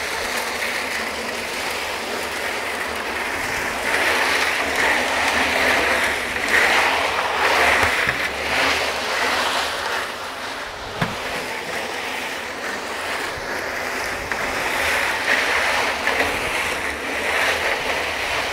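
Tractor-mounted, PTO-driven three-point concrete mixer turning a wet batch of gravel, cement and sand: a steady sloshing, rushing churn that swells and fades as the mix tumbles in the drum, with the compact tractor's diesel engine running underneath.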